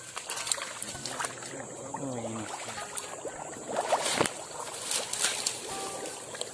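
Shallow muddy swamp water splashing and sloshing as a person pushes through it, with branches and leaves brushing and snapping; the loudest splashes come about four and five seconds in.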